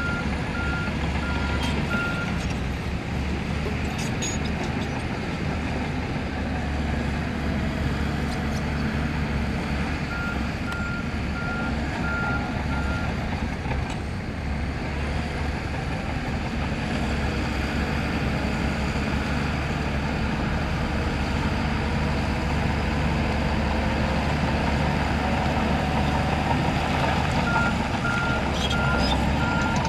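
Heavy earthmoving machinery's diesel engine running steadily under load, with a reversing alarm giving a series of evenly spaced high beeps in three spells: at the start, around ten seconds in, and near the end.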